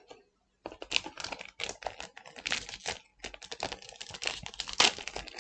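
Trading cards being handled and flicked through one by one, a quick irregular run of light clicks and slides, with a short pause about three seconds in.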